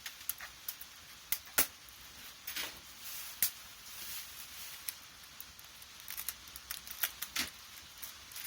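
A dozen or more irregular sharp clicks and knocks at uneven spacing, the loudest about one and a half seconds in.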